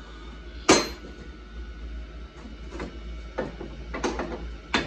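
Metal-on-metal work at a bench vise while old wheel studs are driven out of a wheel hub with a hammer. There is one sharp, loud clank about a second in, then several lighter knocks.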